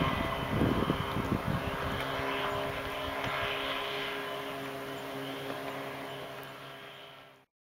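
Mercury KE-4 two-stroke outboard running at speed on a small hydroplane: a steady, high-pitched engine drone that fades gradually as the boat pulls away. There are a few low thumps in the first second or so, and the sound cuts off suddenly near the end.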